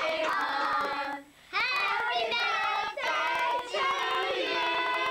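Children singing, breaking off briefly about a second in.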